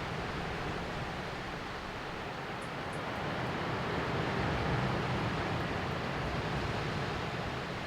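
Sea waves washing onto the shore: a steady rush of surf that swells gently to a peak about midway and eases off again.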